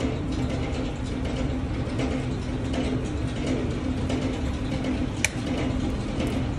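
Electric mixer running steadily with a constant hum, with one sharp click about five seconds in.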